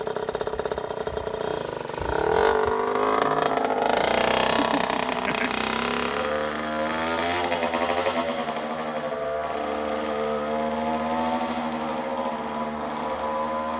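A 60 cc two-stroke mini dirt bike engine, a Kawasaki KX60. It idles fast, revs up about two seconds in as the bike pulls away, then holds a steady, slightly wavering engine note as it rides off.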